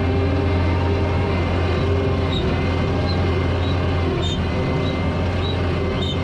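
A motor vehicle's engine running steadily with a strong low hum. From about two seconds in, a short high chirp repeats roughly every half second.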